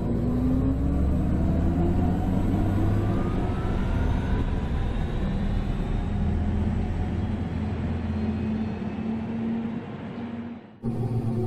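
Audi e-tron GT driving, its electric drive and synthesized driving sound giving a deep steady hum. Tones rise in pitch over the first few seconds as it picks up speed. Near the end the sound drops away and a similar take cuts in.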